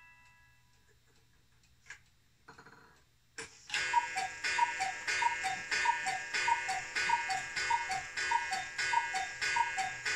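Sternreiter Black Forest cuckoo clock striking the hour: after a few quiet seconds and a click as the strike train releases, the two bellows-driven wooden whistles call "cuckoo" high then low about a dozen times in quick, even succession, each call sounding with a strike on the clock's gong.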